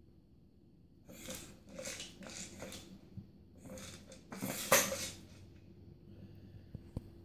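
A run of about five short breathy snorts or puffs of breath, close to the microphone, the loudest about two-thirds of the way through.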